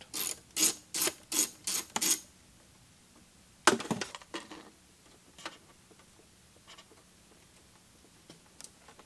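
Small bolts being worked loose from the metal chassis of a record-changer mechanism with a nut driver: a quick, even run of about six sharp clicks in the first two seconds, then a single louder clink near four seconds in and a few faint ticks as the parts are handled.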